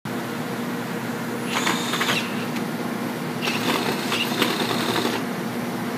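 Milwaukee cordless drill running in two bursts, a short one and then one of nearly two seconds, its motor whining high as it turns a large 1-3/4-inch bit into a junction box, over a steady low hum.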